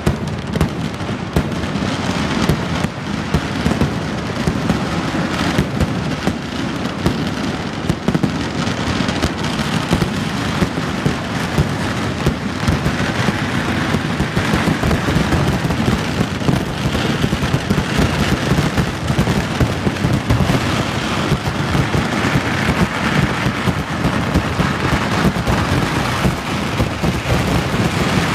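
Vedikettu fireworks barrage: firecrackers and shells going off many times a second, with no break. The bangs run together into a dense crackle.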